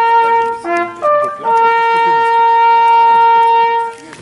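Small coiled brass hunting horn blown in a call: a few short notes jumping up and down, then one long held note that stops about four seconds in.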